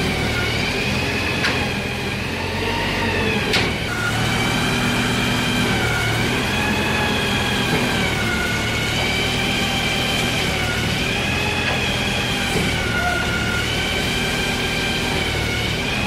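Small motor running with a steady whine whose pitch wavers slightly, over a low hum. Two faint clicks come in the first few seconds.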